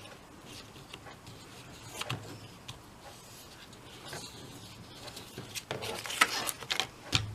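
Cardstock and paper being handled: scattered light taps and short rustles as a glued die-cut piece is pressed into place.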